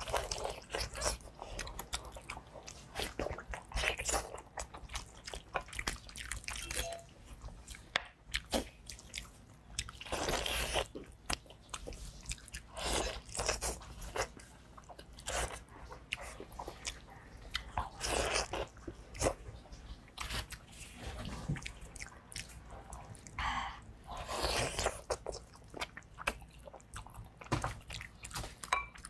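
Close-up eating sounds of someone biting into and chewing pig's trotters: wet smacking and sucking with sharp clicks of tearing skin and gristle, coming in irregular bursts.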